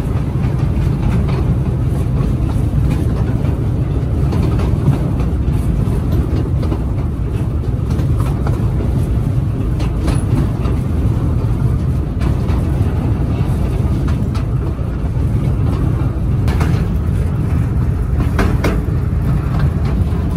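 Amusement-park ride train running steadily along its track, heard from aboard as a continuous low rumble. A few sharp clicks come near the end.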